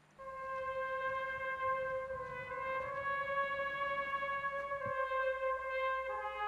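Background music: a brass instrument holding long notes, moving to a lower note near the end.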